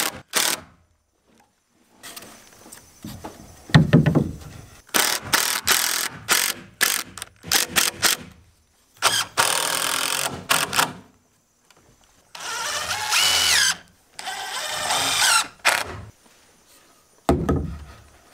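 Cordless impact driver driving screws through a 2x4 into a roof truss, in several runs of one to two seconds with short pauses between. There are a couple of sharp knocks as the board is handled.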